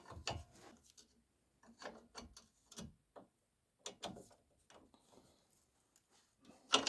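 Ratchet wrench clicking in short, uneven bursts while working the upper nut of a stabilizer link, its stud held by a hex key in its end. The stud's hex socket is rounding out, so the stud turns with the nut.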